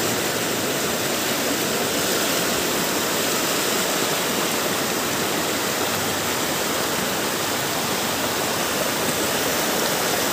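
Steady rushing of muddy floodwater in a swollen river.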